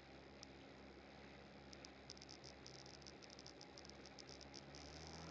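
Very faint jet ski engine idling low, with a string of faint high chirps through the middle and second half; the engine begins to pick up near the end.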